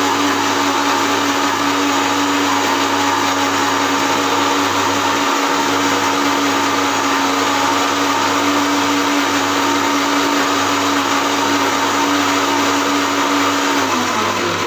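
Electric mixer grinder running at full speed, grinding tomato chutney in its steel jar with a steady motor whine. Near the end the motor is switched off and winds down, its pitch falling.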